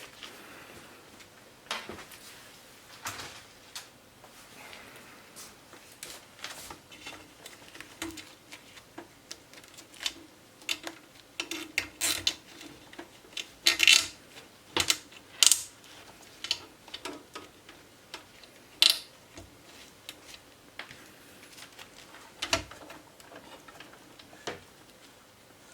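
Irregular clicks, taps and light rattles of hands working inside an open desktop PC case, routing a SATA data cable and pressing it into place, with the sharpest knocks clustered about halfway through.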